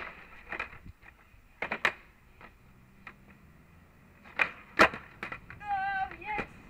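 Skateboard knocks and clacks: the board's tail and wheels strike a wooden pallet grind box and the asphalt in a series of sharp hits, the loudest about five seconds in. A short wavering voice sound comes near the end.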